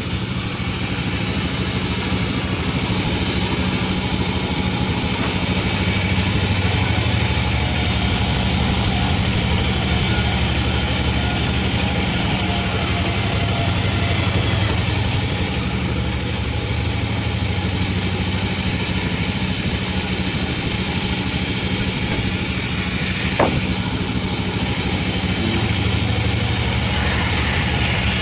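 Panda36 band sawmill running steadily with a low engine-like drone. A higher hiss swells over two long stretches as the blade saws through the bayur log, and there is one sharp click about 23 seconds in.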